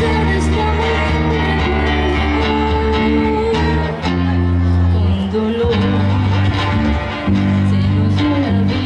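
Live band playing a song: a woman singing into a microphone over bass guitar and guitar, with strong sustained bass notes.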